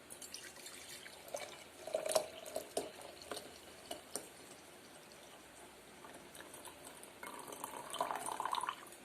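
Steeped ginger water being poured from a thermos into a glass: trickling and dripping with a few light knocks, then a steadier pour near the end.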